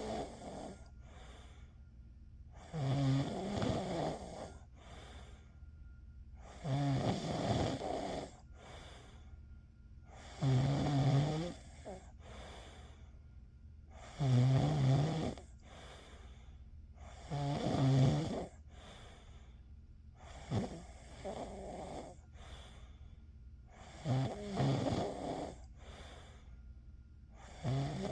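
A sleeping person snoring. There is a rough snore about every three and a half seconds, each lasting about a second, with a fainter breath between snores.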